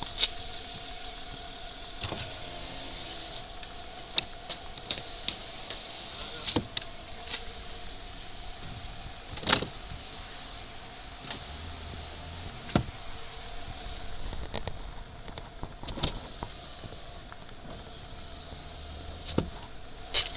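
A 1998 Nissan Cefiro's electric window motors whine as the windows are run up and down, with sharp clicks from the switches and the glass stopping several times.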